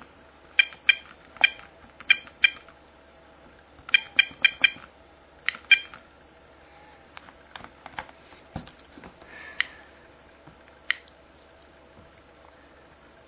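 SV500 Geiger counter clicking at irregular, random intervals as its built-in gamma tube picks up background radiation. About a dozen sharp clicks come in the first six seconds, then fainter, sparser ticks follow, with a last click about eleven seconds in.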